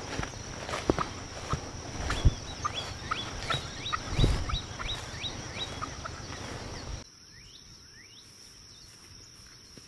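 Footsteps pushing through leafy ground cover, with uneven thumps and rustling, while a bird repeats a short downward-sweeping chirp about twice a second in the middle. A steady thin high tone runs underneath, and at about seven seconds the sound drops suddenly to a quiet outdoor background with only a few faint chirps.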